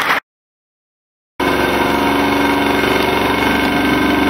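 Applause cut off abruptly, then about a second of dead silence, then a steady droning hum of several held tones that runs on without change.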